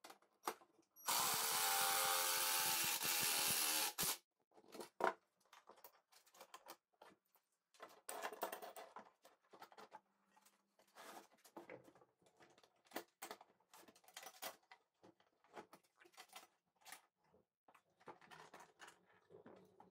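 Cordless drill driving a pocket-hole screw into a plywood cabinet panel in one steady run of about three seconds, starting about a second in. Then come scattered knocks and clicks as the clamp and panels are handled.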